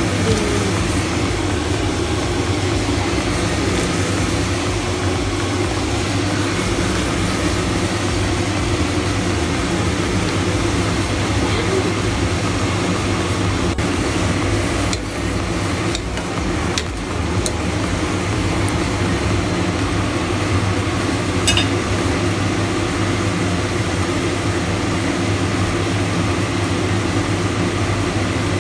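Steady, loud droning hum of kitchen noise over a pot of vegetables boiling on a gas stove, with a few short clinks about halfway through as a plastic ladle goes into the pot.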